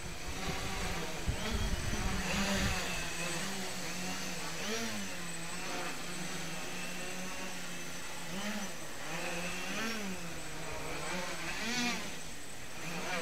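Homebrew wooden-frame quadcopter's electric motors and propellers humming as it hovers low. The pitch swells up and falls back in short bumps every second or two as the throttle corrects.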